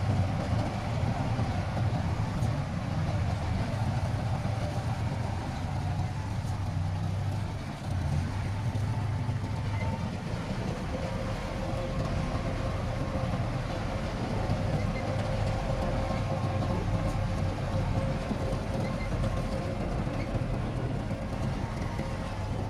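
Heavy diesel earth-moving machinery running steadily under load, a deep continuous engine drone with rumble and clatter. A faint steady whine joins about halfway through.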